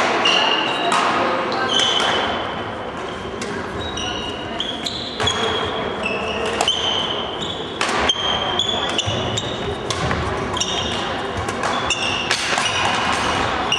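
Badminton play on a wooden sports hall floor: repeated short high squeaks of court shoes and sharp racket strikes on the shuttlecock, echoing in a large hall over background chatter.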